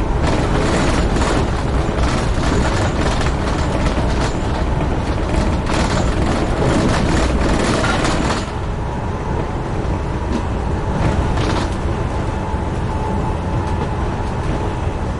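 Amtrak Northeast Regional passenger train running at speed, a steady rumble of wheels on rail with rapid clacks as the wheels cross the switches and frogs of an interlocking. About eight seconds in the clatter suddenly drops off to a smoother, quieter rolling rumble.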